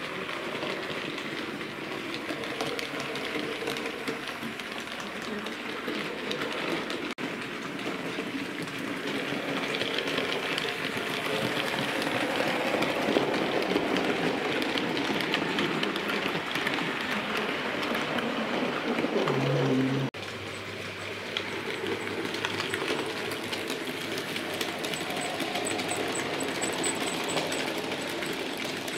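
Bachmann Class 56XX OO gauge model tank locomotive running along the track: a small electric motor whirring with the wheels clicking over the rails. It grows louder toward the middle, then drops suddenly about two-thirds of the way in.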